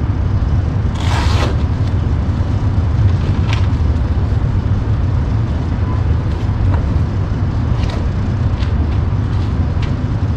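Steady low rumble of outdoor city traffic noise. It carries a short rustling burst about a second in and a few light clicks and taps from gear being handled in its cases.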